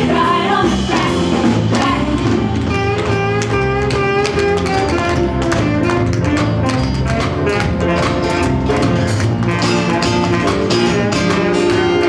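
A live band plays a tune, with horns and a strummed guitar. Many short, sharp clicks of tap shoes on the wooden stage run through the music.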